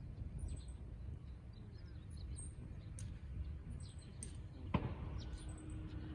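Small birds chirping in short, high calls scattered throughout, over a steady low background rumble. There is one sharp click about three-quarters of the way through.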